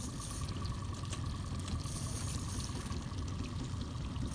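Water sloshing and lapping against a small fishing boat's hull, over a steady low rumble and a faint steady whine.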